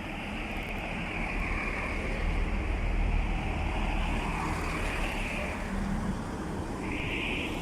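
Chiltern Railways Class 165 diesel multiple unit running into the platform, a deep rumble with a high hiss that swells and fades, growing louder over the first few seconds.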